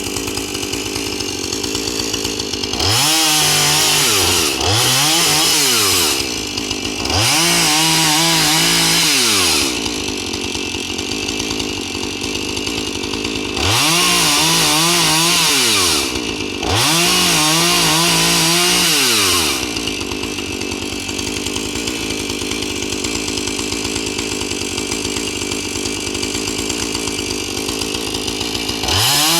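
Two-stroke chainsaw idling and being revved up several times, each burst of throttle lasting two or three seconds, mostly in close pairs. It then idles steadily for about ten seconds before revving again at the very end.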